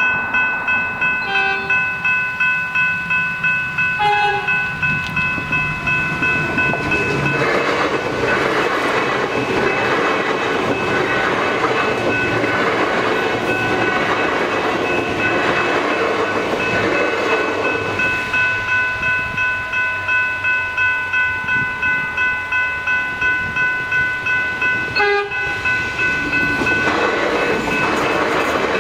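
Level-crossing electronic bells ringing in a steady repeating beat, about two strokes a second, while a Melbourne Metro High Capacity Metro Train, a suburban electric multiple unit, runs through the crossing. Its wheels rumble on the rails loudest from about 7 to 18 seconds in, and again near the end.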